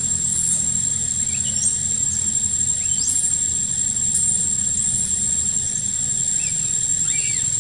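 Steady high-pitched insect drone in the forest canopy, with short high chirps and squeals that sweep up or rise and fall about once a second.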